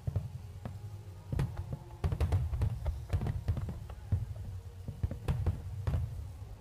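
Fireworks bursting in quick, irregular succession: many sharp bangs and cracks over a continuous low rumble, with faint music under it.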